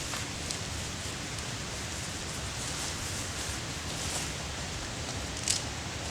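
Wood fire burning: a steady hiss with a few sharp crackling pops, the loudest near the end.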